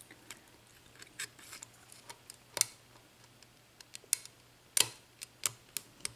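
Lock pick and tension wrench working in a Schlage mortise cylinder's keyway, making scattered light metallic clicks and ticks as the pin stacks are picked one by one.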